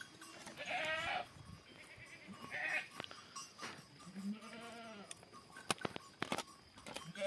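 Goats bleating three times, wavering calls, the last one longer and lower about four seconds in. A few sharp clicks follow about six seconds in.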